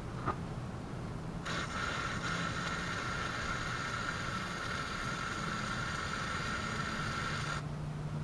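Aerosol spray can hissing in one continuous spray of about six seconds, starting and stopping sharply, as cleaner or lubricant is sprayed onto the scooter's rear suspension hinge.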